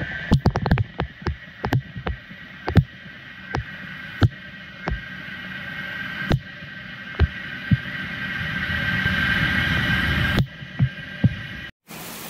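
Irregular sharp knocks and taps, the loudest about three and four seconds in, over a steady mechanical hum that swells from about seven seconds in and cuts off near ten seconds.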